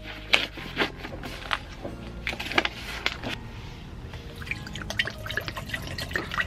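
Background music under camp-cooking sounds: liquid being poured, along with many short clicks and knocks from handling the pot and packaging.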